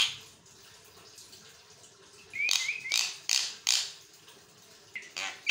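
Javan myna (jalak kebo) calling: a quick run of short rising chirps, then several harsh, scratchy calls about halfway through. After a pause, another call starts near the end.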